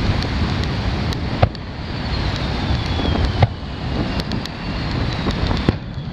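Aerial firework shells bursting: sharp booms about one and a half and three and a half seconds in, with smaller cracks between, over a steady low background rumble. A faint whistle falling in pitch runs through the middle.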